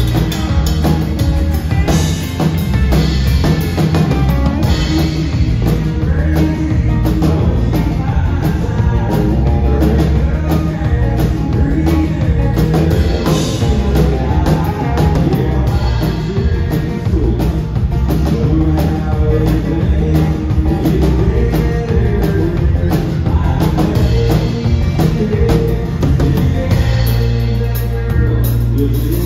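Rock band playing live, with drum kit, bass and electric guitar, picked up from side stage on a phone's microphone.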